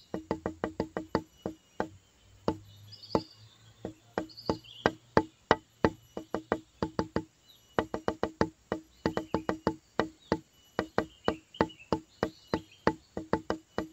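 Background music made of quick, short struck notes, several a second, with a lighter stretch a few seconds in.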